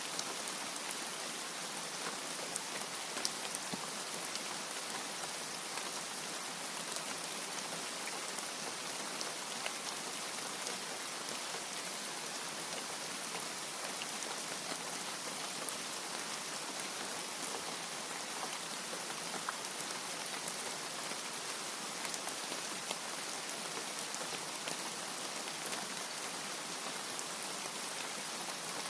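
Steady rain falling, a constant even hiss with the small ticks of individual drops striking.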